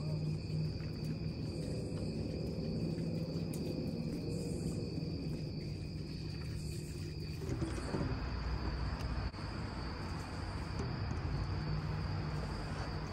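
Night crickets chirping in a steady high chorus over a low hum. A little past halfway, a rushing noise comes in under it and carries on.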